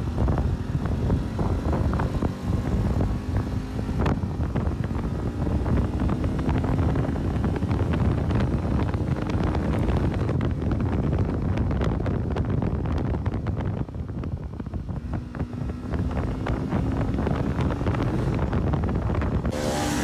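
Motorcycle engine running steadily while riding, under heavy wind buffeting on the microphone. The engine note rises slowly in a couple of places as it speeds up.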